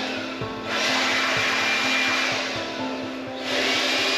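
Cordless handheld blower running at full speed, a steady rushing whine that eases off twice briefly as the trigger is let up.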